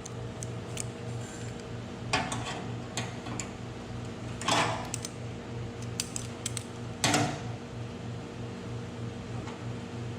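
Scattered metallic clinks and clatters from metal parts and tools being handled, with three louder clanks about two, four and a half and seven seconds in, over a steady hum.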